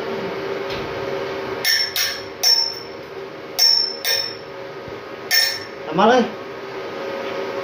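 A hammer striking a welded steel frame six times at irregular spacing, each a sharp metallic hit with a brief ring, over a steady low hum.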